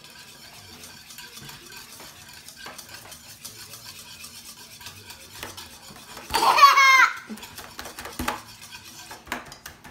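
Metal wire whisk stirring a thick glue slime mixture in a plastic bowl, a fine, rapid clicking and scraping. About six seconds in, a young child lets out a loud, high-pitched squeal lasting under a second.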